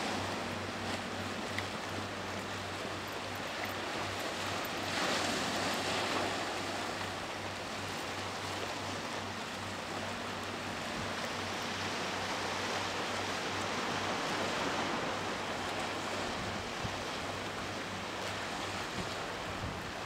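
Steady wind and sea noise across open harbour water, with a low steady hum underneath; it swells briefly about five seconds in.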